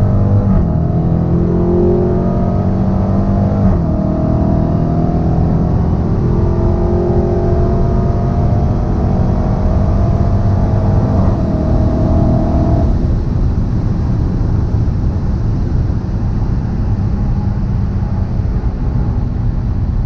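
Supercharged 6.2-litre Hemi V8 of a stock 2016 Dodge Challenger SRT Hellcat at full throttle, heard from inside the cabin. It pulls hard with quick upshifts about a second in and again about four seconds in, and the engine note climbs steadily. About thirteen seconds in the engine note drops away, leaving loud wind and road noise.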